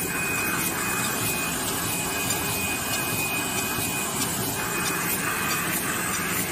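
DSY 110 carton-sleeve gluing machine running: a steady mechanical whir with a thin high whine through the first few seconds, and a regular pulse of its working cycle about twice a second in the second half.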